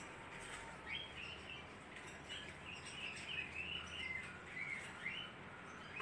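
Budgerigar chirping faintly in a quick, warbling run of short high notes that starts about a second in and stops near the end.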